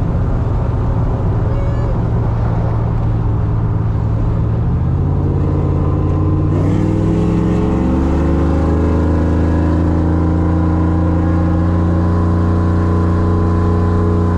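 Cammed LS V8 pickup under hard acceleration, heard from inside the cab. The engine note jumps up in pitch twice, about five and seven seconds in, then holds high and climbs slowly before dropping off at the very end.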